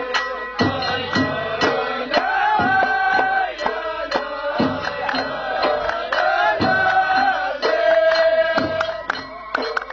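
Ahwash music: a group chanting in unison with long held notes over a steady, fast beat of drums.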